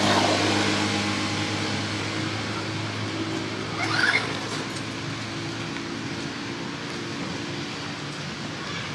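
Steady low electric hum of a radio-controlled toy truck's motor, fading over several seconds. About four seconds in, a short shrill squeal from a long-tailed macaque during a scuffle.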